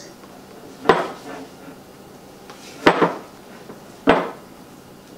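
Spatula knocking against a glass mixing bowl while thick peanut butter brownie batter is stirred: three sharp clinks, about a second in, near the middle and about four seconds in.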